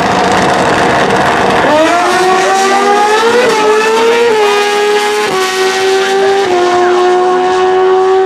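Street-legal sport bike drag racing motorcycle launching at full throttle and accelerating hard down the track. Its engine note climbs, then drops back at each of about four upshifts.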